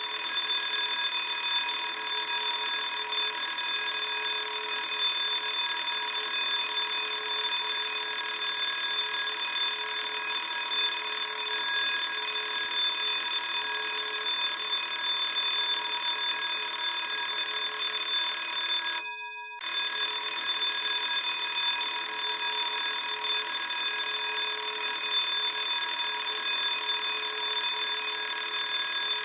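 Classic electric school bell ringing continuously and loudly, with a brief break about 19 seconds in before it rings on.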